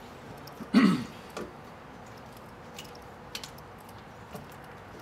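Hands working at a pickup's rear door trim: a few light clicks of plastic trim and fasteners. One short, louder, low sound falls in pitch about a second in.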